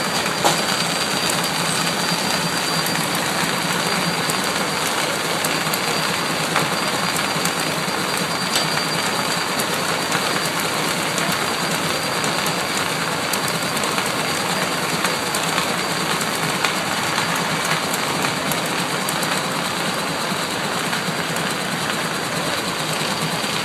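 Machinery running steadily, an even, unbroken noise with a few faint clicks.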